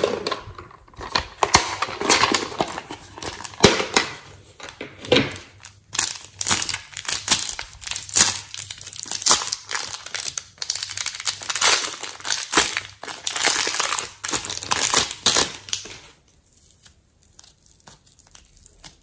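Clear plastic piping bag crinkling and crackling as hands squeeze and knead the soft clay inside it: a dense run of rustles that dies down about three seconds before the end.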